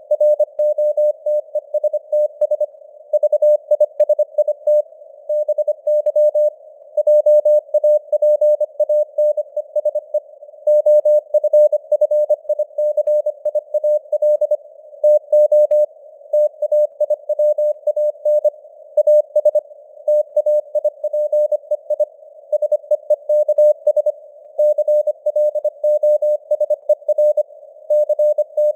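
Morse code (CW) at 25 words per minute: a single steady tone keyed on and off in dots and dashes, over a narrow band of simulated radio hiss. The signal strength rises and falls slightly (simulated QSB fading).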